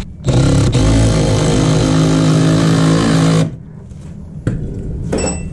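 Cordless impact driver running for about three seconds, hammering a screw through a metal pipe clamp into wood, then stopping.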